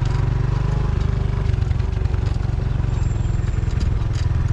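Wind buffeting the microphone: a steady, loud low rumble that flutters unevenly.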